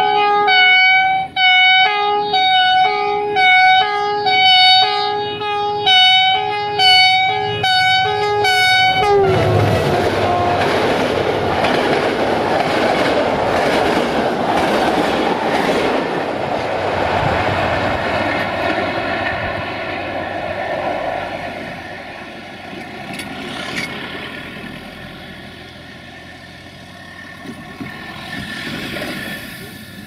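The multi-tone air horn of CFR diesel locomotive 64-1019-0 sounds a rapid rhythmic series of about a dozen short blasts, ending in a downward slide in pitch as the locomotive passes. Then the passenger coaches run by close at hand with steady wheel-on-rail noise, which fades as the train moves away.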